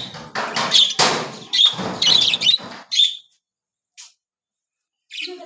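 Pet budgies chirping and chattering, mixed with a louder scratchy rustling over the first three seconds. After that comes a pause with one faint chirp, and the chirps start again near the end.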